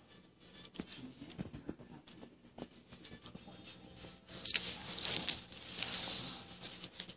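Dog rubbing its head and neck along a carpet, a rustling scrape with its collar jingling, starting about four and a half seconds in; before that only faint scattered ticks.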